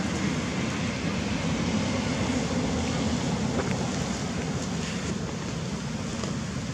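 Steady wind buffeting the camera microphone, a low flickering rumble with a few faint clicks.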